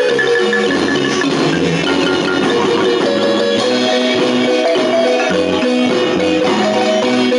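Marimba ensemble playing a lively tune: rapid mallet notes in the melody over a steady bass line, with light percussion.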